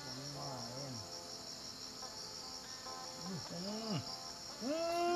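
Evening insect chorus, crickets chirping steadily in a high, fast, even pulse. A man's voice is heard faintly near the start, and a louder, drawn-out vocal sound comes near the end.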